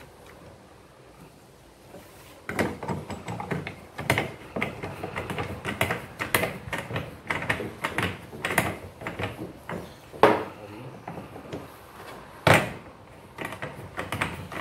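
Irregular metallic clicks and clanks as a scooter's centrifugal clutch and driven pulley are fitted together by hand. They start about two and a half seconds in, with two louder knocks near the middle and toward the end.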